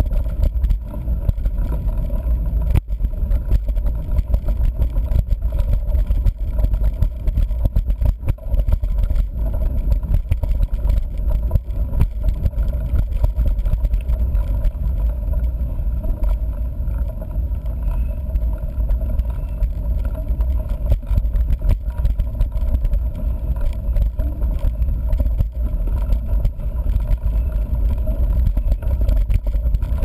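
Mountain bike rolling over a dirt trail, heard from a camera mounted on the bike: a steady low rumble of wind on the microphone and knobby tyre noise, with frequent small knocks and rattles from bumps.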